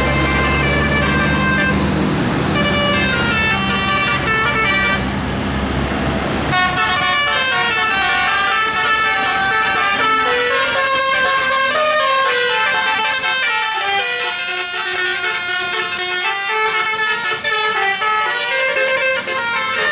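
A bus's Basuri 'telolet' musical air horn plays a fast melody of quickly changing notes. The melody takes over about a third of the way in, after a low, steady bus engine drone fades.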